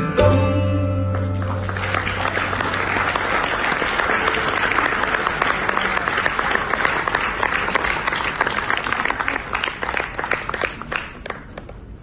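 Sitar and tabla ring out on a final stroke ending a fast jhala, the low tabla bass tone holding for about a second; then an audience applauds, the clapping thinning out and fading near the end.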